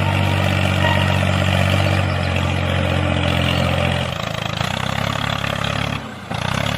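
Tractor engine running steadily at low revs, its tone shifting slightly about four seconds in, with a brief dip about six seconds in.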